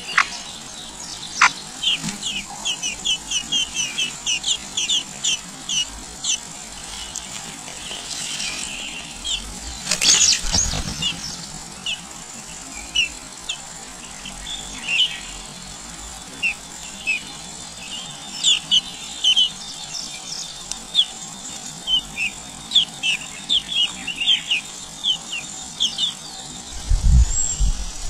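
Small songbirds at a nest chirping: short high chirps repeated in quick irregular runs. There is a brief burst of noise about ten seconds in.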